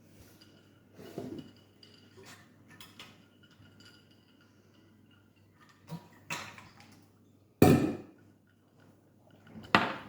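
Kitchen clatter: things being handled and set down, with two sharp, loud knocks, one about three-quarters of the way in and one near the end.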